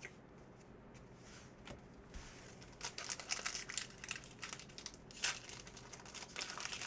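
Plastic-foil wrapper of a card pack crinkling and tearing as it is ripped open and handled. It starts about three seconds in, after a quiet stretch.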